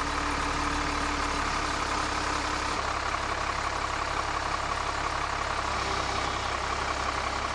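Truck-mounted crane's engine running steadily, with a constant whine over it and a lower hum that fades out a couple of seconds in.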